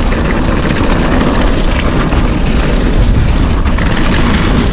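Wind buffeting the microphone and the tyres of a full-suspension mountain bike rumbling over a dirt flow trail at speed, with scattered rattles and knocks from the bike.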